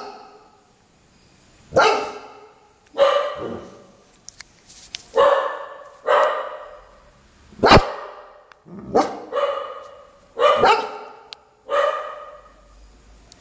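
Doberman Pinscher barking repeatedly: about ten deep, loud barks at uneven gaps of roughly half a second to two seconds, each trailing off with a short room echo. It is alert barking at something outside the glass door.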